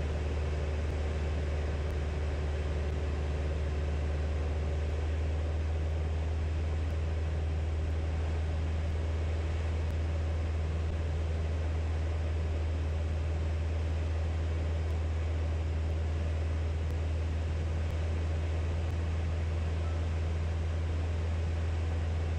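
Steady drone of a single-engine light aircraft's piston engine and propeller heard from inside the cockpit: a low, even hum that holds the same pitch and level throughout.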